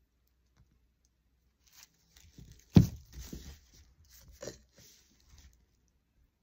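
Crafting handling noises: a plastic bag crinkling and rustling under the work, with one sharp knock a little under three seconds in.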